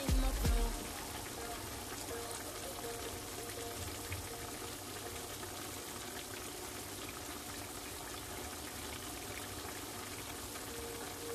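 Vegetables and fish simmering in liquid in a skillet: a steady bubbling hiss, after a brief low rumble at the very start.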